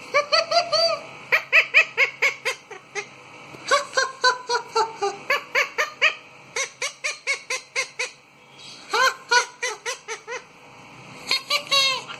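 Indian ringneck parakeet calling in quick runs of short squawks, about four or five a second, in several bursts with brief pauses between them.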